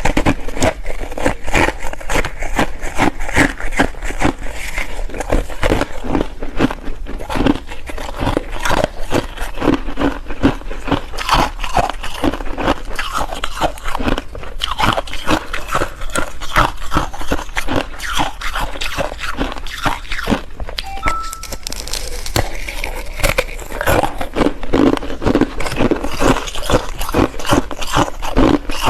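Ice being bitten and chewed close to the microphone: a dense, continuous run of sharp crunches, several a second.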